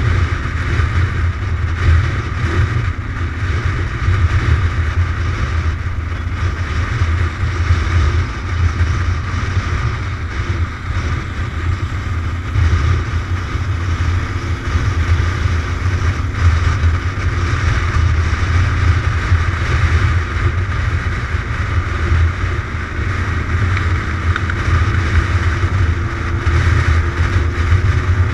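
Motorcycle riding at cruising speed: a steady low engine rumble under heavy wind rush on the bike-mounted camera's microphone, with a faint rising engine note in the last several seconds.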